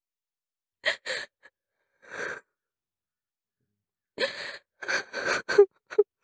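A woman sobbing: gasping, breathy sobs beginning about a second in, then a quicker run of sobs with short voiced whimpers in the last two seconds.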